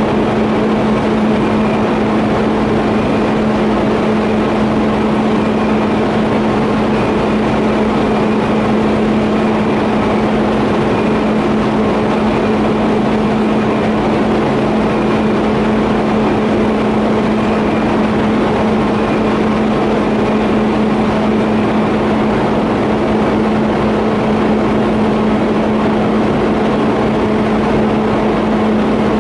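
TIG welding on a 50A pipe flange and elbow: a loud, steady hum with a constant buzz under it, unbroken throughout.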